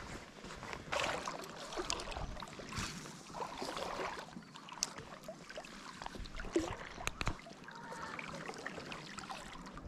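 Shallow seawater sloshing and splashing softly around a wading angler's legs, with a few sharp ticks partway through.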